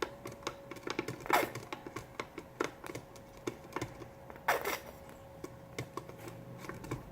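A spoon or stirring stick clicking and scraping against a cup while glue is stirred into warm water: irregular light taps, with two louder strokes about a second in and again past the middle.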